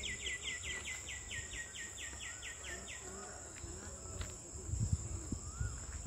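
A bird calling a rapid series of falling notes, about five a second, that stops about three seconds in, over a steady high insect drone. A few low thumps about five seconds in.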